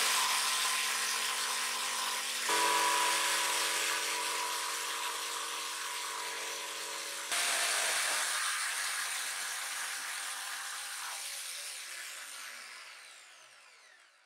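Electric jigsaw cutting through a thick solid blackwood panel, its motor running steadily under load with the blade chattering through the timber. The sound changes abruptly twice, then fades out near the end with a falling whine.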